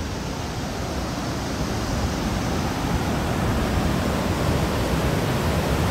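The glacier-fed Kicking Horse River rushing through whitewater rapids at Natural Bridge, a steady wash of water noise that grows a little louder as it goes.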